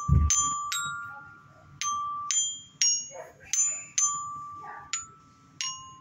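Child's rainbow metal-bar toy xylophone (glockenspiel) struck with a wooden mallet, single slow notes on a few neighbouring bars, about eight strikes, each ringing on until the next. A short dull thump comes right at the first strike.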